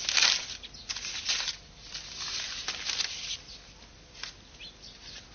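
A sheet of paper rustling as it is handled and unfolded: several quick rustles in the first second and a half, then a few faint ones.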